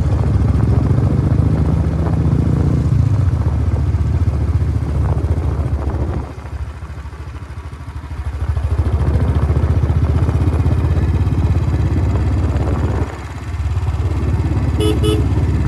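Motorcycle engine running under throttle while riding. It drops to a lower, quieter note for about two seconds around the middle, and briefly again near the end, as the throttle is rolled off and then opened back up.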